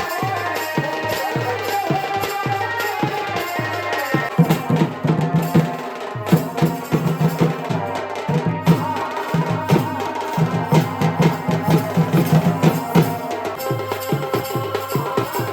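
Chhau dance music: fast drumming with a sustained melody above it, the low drum strokes growing heavier about four seconds in.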